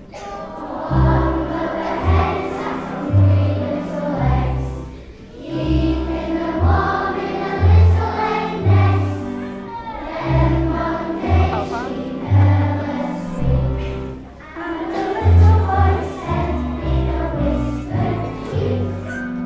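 A large group of young children singing a song together in unison, over an instrumental accompaniment with a bass line that moves in short, even notes.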